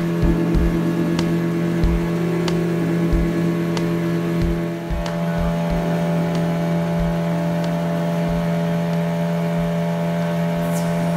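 Motorboat engine running at a steady pitch under way, with irregular low thuds and a steady wash of water noise.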